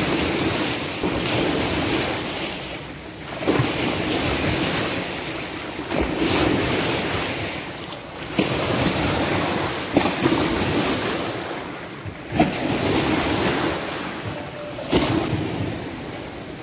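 Waves rushing and splashing in an artificial wave pool, the sound swelling in surges every two to three seconds, several with a sharp slap at the start.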